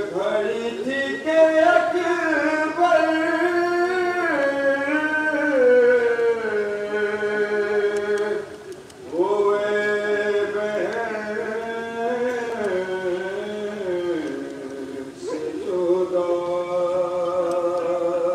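A lone man's voice chanting a slow, melodic religious recitation in long held phrases, pausing briefly twice.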